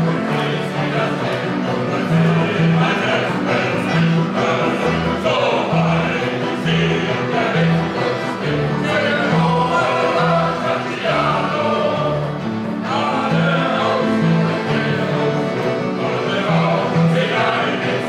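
Men's choir singing together with accordion accompaniment, a bass line of regularly pulsing low notes beneath the voices.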